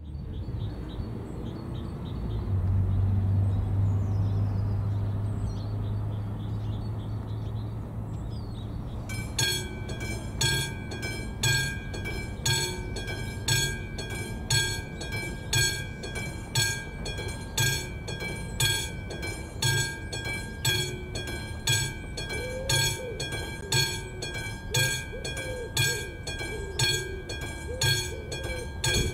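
Level-crossing warning bell, the classic mechanical bell of an AŽD 71 crossing signal, starting to ring about nine seconds in and striking steadily about one and a half times a second, each strike ringing on. It signals that a train is approaching and the crossing is closing. Before it starts there is a low hum, loudest a few seconds in.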